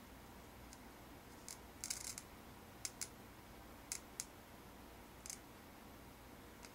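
A handful of short, sharp clicks and snaps, bunched about two seconds in and then scattered singly or in pairs, over a faint steady background hiss.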